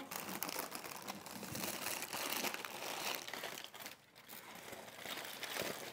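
Aluminium foil crinkling and crackling as a foil-wrapped brisket is lifted out and unwrapped by hand, with a brief lull about four seconds in.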